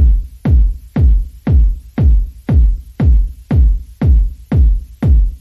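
Background music with a heavy, steady kick-drum beat, about two beats a second.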